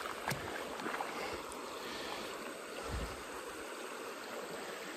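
Steady rushing of shallow river water flowing over rocks, with a small click just after the start and a soft low thump about three seconds in.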